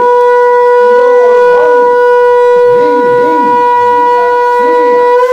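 Conch shell (shankha) blown in one long, loud, steady note that cuts off near the end. It is the ritual conch sounded at an auspicious moment of a Hindu rite.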